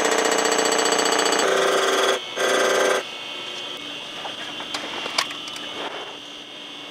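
Deck-surfacing machine cutting the cast-iron deck of a Cadillac 365 V-8 block, a steady high-pitched ringing whine that stops abruptly about three seconds in. After that, quieter shop noise with a few light clinks.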